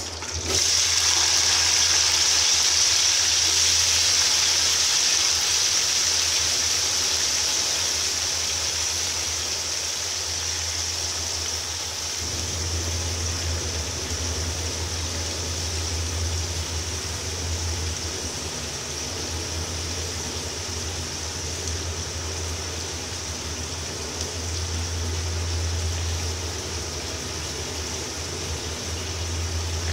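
Sliced onions sizzling in hot oil with cumin seeds in an aluminium pot: a hiss that starts suddenly as they drop in, then slowly eases off, over a steady low hum.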